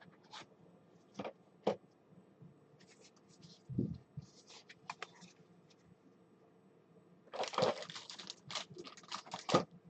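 A foil trading card pack being handled and torn open: scattered light taps and clicks, then a burst of wrapper crinkling about seven seconds in.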